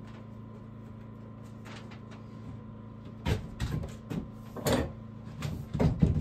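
A series of irregular knocks and clunks, about seven in the last three seconds, the loudest near the end, over a steady low hum.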